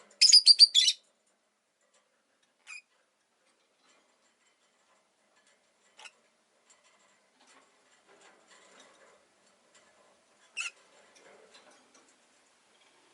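Rosy-faced lovebird chirping: a quick run of about six sharp, high chirps in the first second, then a few single chirps later, the clearest about ten seconds in.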